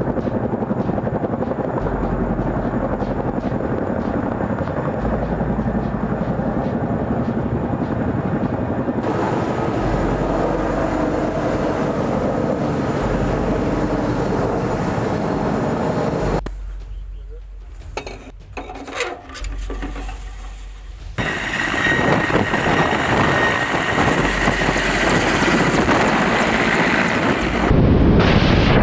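Helicopter in flight: steady rotor and engine noise that changes abruptly several times, with a quieter, broken stretch a little past the middle.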